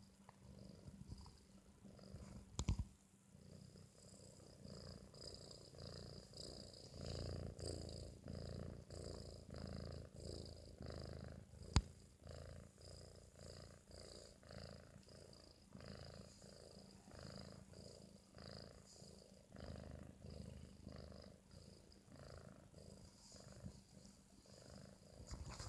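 A four-month-old British Shorthair kitten snoring in its sleep: a low sound pulsing with each breath, a little more than once a second. There are two sharp clicks, about 3 and 12 seconds in.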